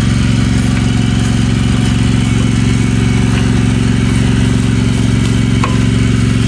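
Small gasoline engine running steadily at a constant speed, with an even, unchanging hum.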